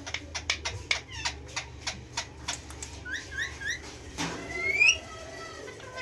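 Indian ringneck parakeets chattering: a quick run of short clicks and chirps, then three short rising chirps about three seconds in. Just before five seconds comes a loud rising whistle.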